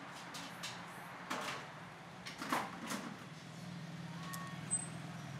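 Eating-place clatter: a few scattered knocks and clinks in the first three seconds, then a steady low hum that comes in about halfway through.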